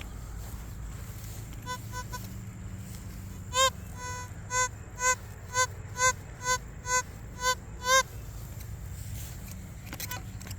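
Metal detector giving a target signal: a short pitched beep repeated about nine times at roughly two a second, with a few fainter beeps before, as the coil passes back and forth over buried metal.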